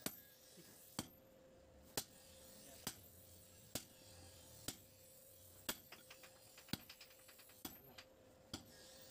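Hand hammer striking a red-hot spring-steel cleaver blank on an anvil, sharp blows about once a second, with a quick run of lighter taps about six to seven seconds in.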